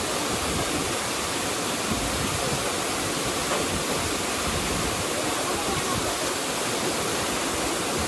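Small waterfall below a dam, water rushing steadily with an even, unbroken noise.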